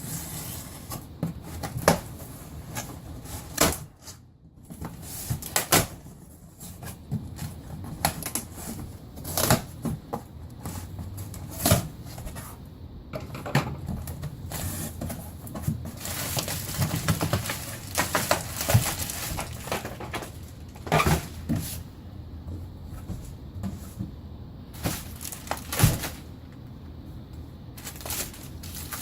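Large cardboard shipping box being opened and handled: irregular knocks, scrapes and clicks, with stretches of rustling from cardboard and packing material.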